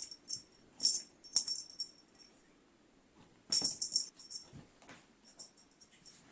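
Short bursts of bright, high jingling rattle, four or five times, with a few sharp knocks between them.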